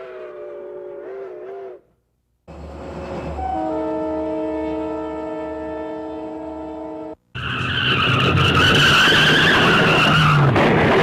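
A string of separate train horn and whistle sound effects with short silent gaps between them. First a chord whistle trails off. Then a multi-note chord horn holds for about five seconds. Last comes a loud hissing, screeching sound with two high shrill tones.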